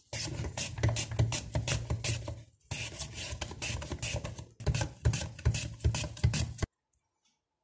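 Raw potato pushed back and forth across a plastic mandoline slicer's steel blade, a quick scraping stroke about four times a second. It comes in three runs with short breaks and cuts off suddenly near the end.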